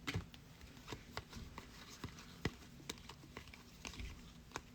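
Trading cards and pack wrappers being handled: irregular light clicks and crinkles, the sharpest click about two and a half seconds in.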